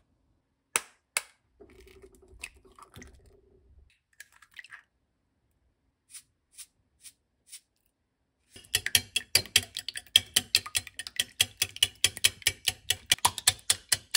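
A wire whisk beating eggs in a glass bowl, its metal wires clicking rapidly and evenly against the glass, several strokes a second; this starts a little past halfway and is the loudest sound. Earlier come two sharp knocks and a few light ticks.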